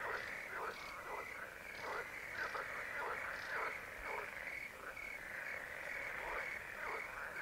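Frog chorus at a pond: many short calls overlap, several a second, each falling in pitch, over a continuous high trill.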